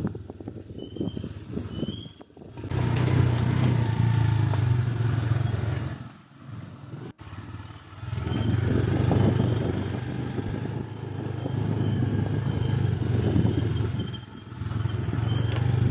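Motorcycle engine running under throttle, easing off briefly about two seconds in and again for a couple of seconds near the middle.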